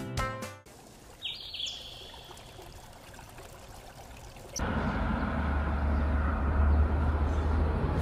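Background music cutting off, then faint outdoor ambience with a brief bird call about a second in. A little past halfway a louder, steady rushing noise with a low rumble sets in.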